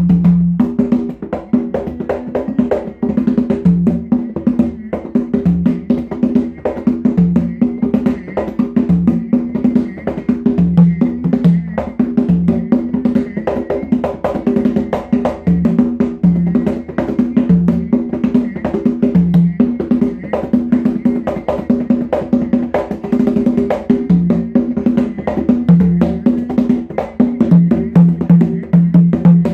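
Congas played by hand in a fast, steady rhythm, dense strokes with ringing open tones alternating between two drum pitches.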